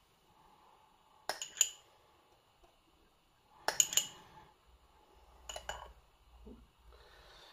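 Spoon clinking against a serving bowl in three short bursts of taps about two seconds apart, with a brief ring after each, as yogurt is spooned out onto the tacos.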